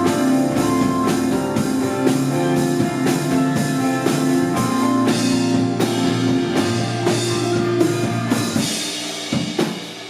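Rock band playing an instrumental passage: drum kit with bass drum and snare under sustained guitar and bass notes. About nine seconds in the held notes fall away, leaving a few separate drum hits.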